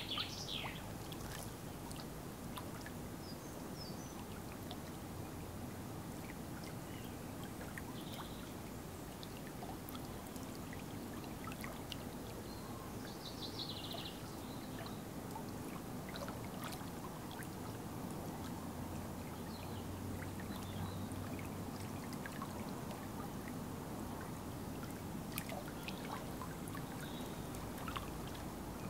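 Small waves lapping steadily on a pebble loch shore.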